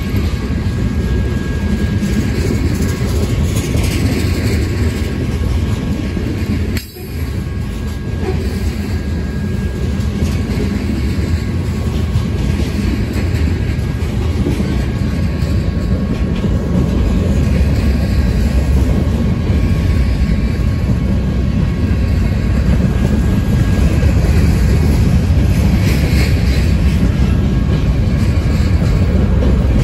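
Freight train rolling by on the rails with a steady low rumble that grows a little louder in the second half. The sound drops out sharply for a moment about seven seconds in.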